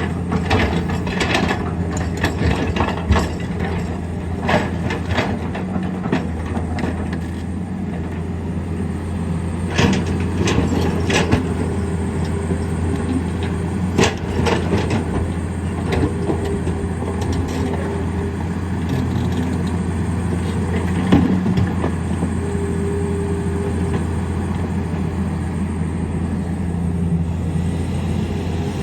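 Tata Hitachi hydraulic excavator working rock: its diesel engine runs steadily under load, with a higher tone that comes and goes. Repeated sharp knocks and scrapes, likely the bucket against rock, are loudest about 14 s and 21 s in.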